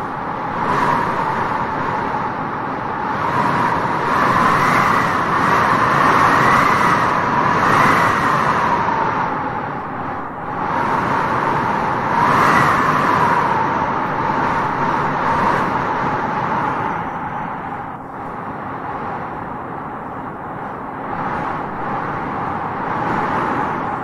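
Wind blowing in gusts: a steady rushing with a whistling tone that rises and falls. It swells loudest about four to eight seconds in and again around twelve seconds, then eases.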